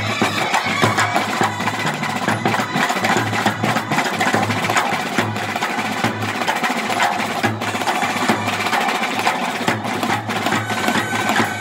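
Bandset brass band playing: snare drums beaten in fast, dense rolls and strokes with sticks, along with a barrel drum and bass drums, while trumpets sound held notes over the drumming.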